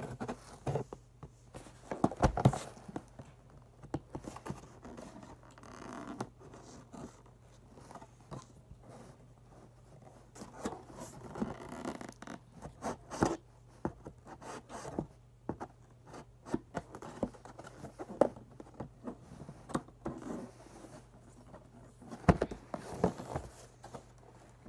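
Cardboard and plastic toy packaging being opened: irregular ripping, scraping and rustling with scattered sharp clicks, loudest about two seconds in and again near the end.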